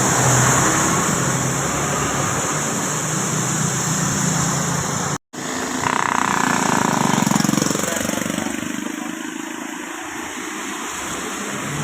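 Bus engine and heavy road noise as large vehicles pass close by. The sound cuts out abruptly for a moment about five seconds in, then comes back as another vehicle passes, rising and then fading.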